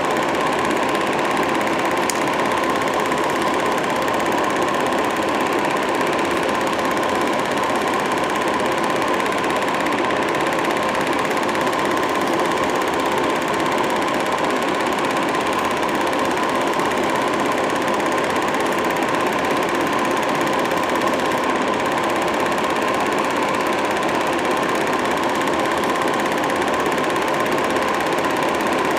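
Home-movie film projector running: a steady, even mechanical whir and clatter with a constant hum.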